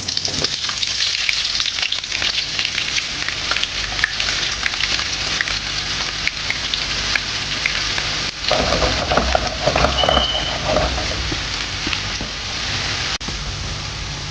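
Sliced onions dropped into hot oil in a frying pan, sizzling and crackling at once and frying on with a steady, dense sizzle.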